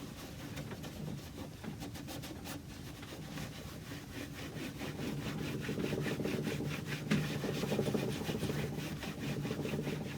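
Hand rubbing on a wooden surface: a cloth or pad worked back and forth over the mahogany in quick, even strokes.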